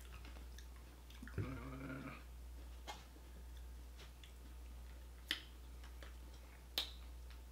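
Quiet eating sounds: a few sharp mouth clicks and smacks spaced a couple of seconds apart, with a short pitched hum-like sound about a second and a half in, over a steady low hum.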